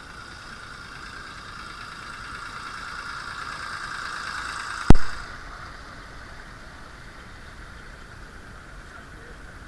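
A 16mm-scale garden railway model locomotive running with a steady whine that grows louder. A single sharp, loud knock comes about five seconds in, after which the running sound carries on quieter and duller.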